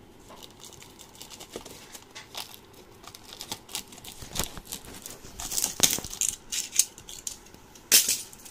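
Cardboard shipping carton being opened by hand: packing tape cut and torn, and cardboard flaps rustling and crinkling in a run of irregular sharp crackles and scrapes, loudest about six seconds in and near the end.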